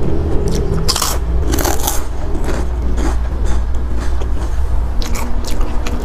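Crunchy food being bitten and chewed close to a clip-on lapel microphone, with the crispest crunches about a second in, around two seconds, and again near five seconds.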